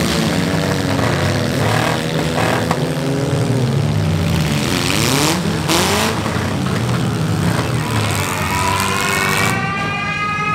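Several demolition derby car engines revving and dropping in pitch, overlapping one another, with two sharp bangs about five and a half seconds in. Near the end a siren starts winding up, rising slowly in pitch.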